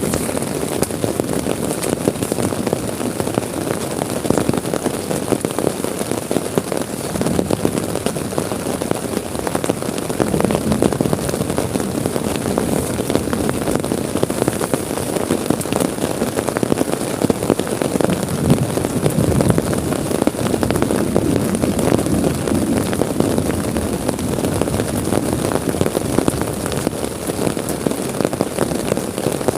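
Heavy rain falling steadily on a tent, a dense wash of individual drop hits.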